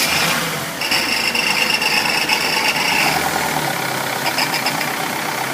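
Mercedes-Benz Vito van's diesel engine idling just after starting, filmed under the open bonnet. A high whine sits over the engine noise from about one second in and drops away about three seconds in.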